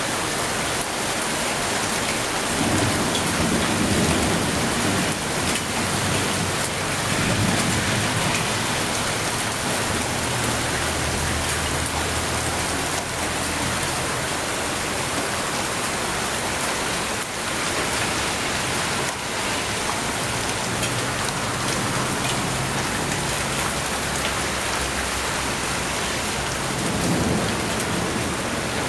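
Hail and rain falling steadily and heavily in a hailstorm, an even dense noise. A few low rumbles swell up about 3 seconds in, about 7 seconds in and near the end.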